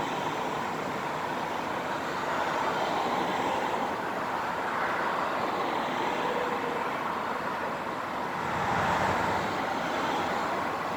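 Road vehicle noise: steady engine and tyre sound of passing traffic, swelling as a heavier vehicle goes by about nine seconds in.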